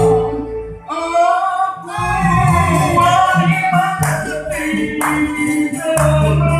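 Keroncong ensemble playing, with a man singing over acoustic guitars, a plucked cello and violin; the music dips briefly about a second in, then carries on.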